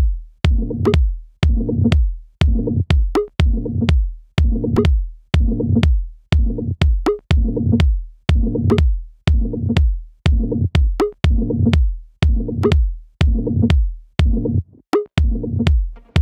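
Techno track: a drum-machine and synthesizer loop of short, deep pitched stabs, about one every three-quarters of a second, each fading quickly, with sharp clicks between them.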